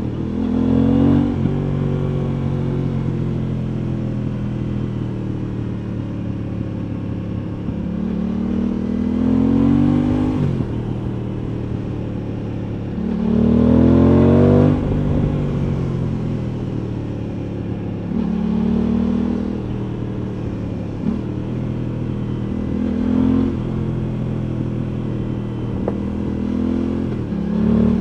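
Aprilia Tuono 660's parallel-twin engine running under way, heard from the rider's seat. It rises in pitch under throttle about six times, each rise ending in a sudden drop, with the longest and loudest pull about halfway through.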